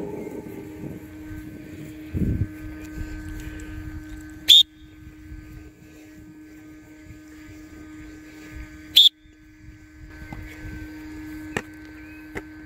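Outdoor sound of a rugby passing drill on a grass pitch: a steady hum with two short, shrill, very loud blasts about four and a half seconds apart, and a few sharp slaps near the end.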